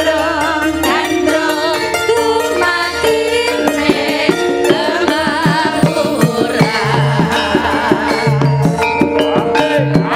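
Javanese sinden singing with vibrato through microphones over a gamelan-style accompaniment. Regular hand-drum strokes come in about halfway through.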